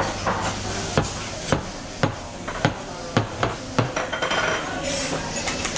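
Stainless steel milk pitcher of freshly steamed milk knocked down on the bench again and again, about eight sharp knocks roughly two a second, to burst the big bubbles and settle the foam before pouring. The knocks stop about four seconds in.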